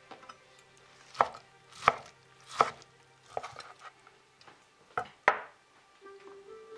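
Large knife slicing through roasted pork neck and knocking on a wooden cutting board: about six sharp cutting strokes at uneven intervals.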